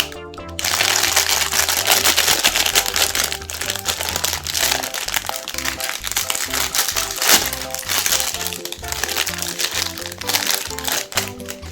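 Chocolate-coated Magnum ice cream bars being crushed in a meat grinder, a dense, continuous crackling and crunching that starts about half a second in and eases off near the end. Background music with a simple melody plays throughout.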